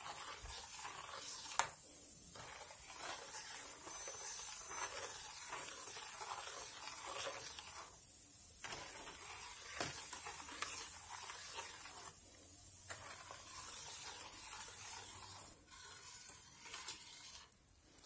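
Metal spoon stirring and scraping in a stainless steel pot of hot water with salt, vinegar and baking soda, working the mixture until it dissolves. There are a few sharp clinks of spoon on pot and a few short pauses. The sound is faint and dies away in the last couple of seconds.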